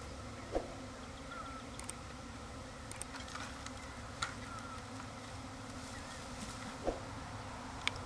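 Honey bee swarm buzzing, a steady dense hum of many flying bees, with a few light knocks scattered through it.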